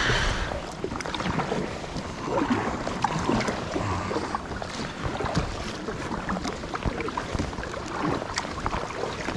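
Water splashing and sloshing around a kayak, with irregular small knocks against the hull.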